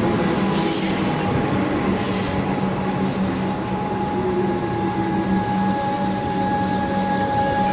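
Comeng electric suburban train moving past along the platform. A steady rumble of wheels on rail is overlaid by a constant whine from the train.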